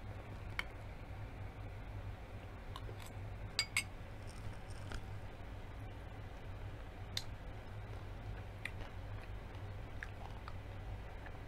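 Quiet eating sounds: a handful of short clicks and light crunches from chewing and from a spoon and fingers on a metal sheet pan, including a quick pair about three and a half seconds in, over a steady low hum.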